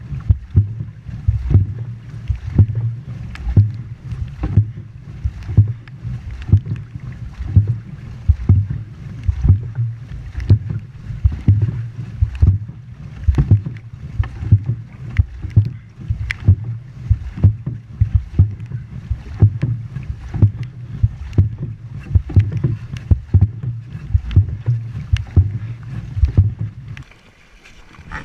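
Dragon boat crew paddling in unison, heard from inside the hull: a quick, regular train of sharp knocks from the strokes over a steady low rumble. The knocking and rumble drop away about a second before the end.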